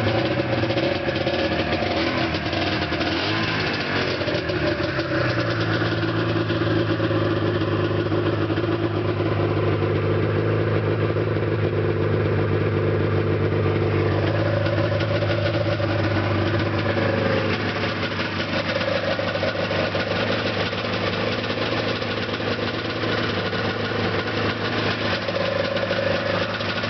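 Ski-Doo Blizzard 9500 snowmobile's two-stroke engine running, its pitch uneven for the first five seconds or so before it settles into a steady run.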